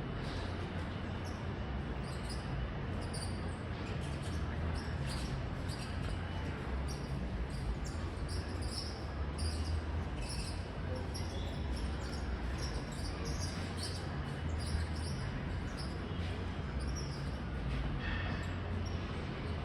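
Dayton/Marley Leading Edge 48-inch ceiling fan running with a low, steady hum and irregular high-pitched ticks and squeaks, the sound of its bad bearings.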